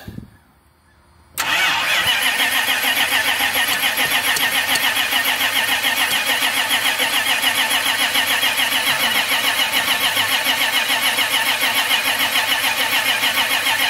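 1990 Dodge truck's engine cranking on the starter, a steady rhythmic churning that begins about a second and a half in and goes on without the engine catching. It will not start even with starting fluid, a no-start the owner ties to the throttle-body fuel injection failing to hold fuel pressure.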